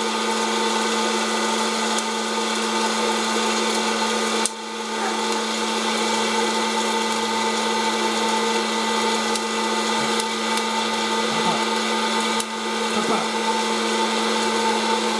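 Hot-air popcorn popper running: its fan motor gives a steady hum and the hot air a continuous whoosh.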